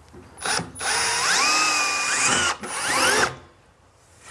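Compact cordless drill pre-drilling a screw hole in a stainless steel shelf bracket. After a brief blip, the motor whines up and holds steady for about two seconds, pauses briefly, then revs up once more and stops about three seconds in.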